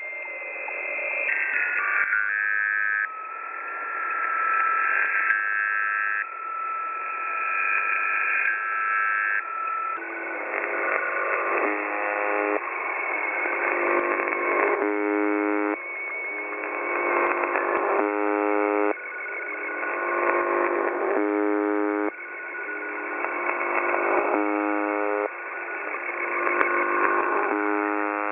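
UVB-76 shortwave transmission heard through a radio receiver, narrow and tinny, carrying strange electronic tones rather than its usual buzz. For the first ten seconds a steady tone holds under stepping higher tones. After that a siren-like cycle repeats about every three seconds, the sound swelling and then dropping back, with short bursts of chord-like tones.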